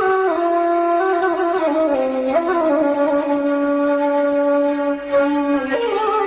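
A woodwind instrument playing a slow melody, with a long held low note through the middle.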